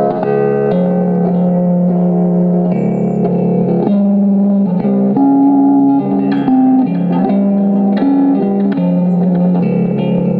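Telecaster-style electric guitar played through a small amplifier: a slow melody of sustained single notes and chords, each held for about half a second to a second before the next.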